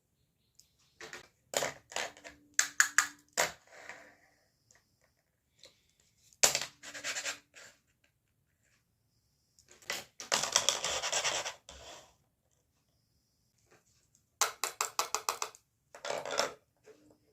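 Pieces of a plastic toy makeup set being handled: bursts of quick clicking and tapping, with about two seconds of rubbing and scratching in the middle.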